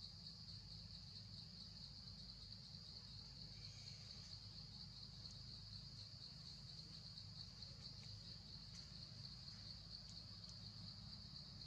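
Faint, steady high-pitched chorus of insects such as crickets or cicadas, with a low rumble underneath.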